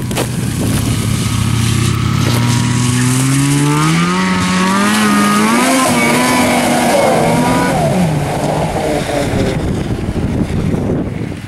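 Snowmobile engine at high revs as the sled skims across open pond water. Its note climbs steadily for a few seconds and holds high, then falls away about eight seconds in, with a hiss of spray and rushing air over it.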